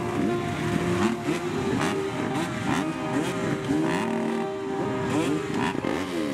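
Several dirt bike engines revving together, their pitches rising and falling and overlapping, over a steady tone.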